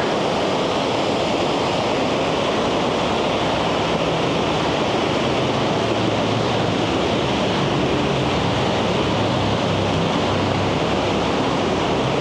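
Steady roar of the Handeck waterfall rushing far below a suspension bridge.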